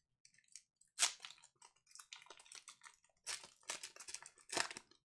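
Trading cards being handled and shuffled: irregular crackly scraping and rustling in short bursts, the loudest about a second in and a quick run of them in the second half.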